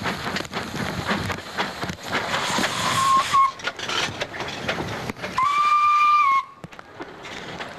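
Metre-gauge steam tank locomotive no. 3714 and its wooden carriages running past close by, wheels clattering on the rails. The locomotive's steam whistle blows twice: a short blast, then a longer one of about a second two seconds later, the loudest sound here.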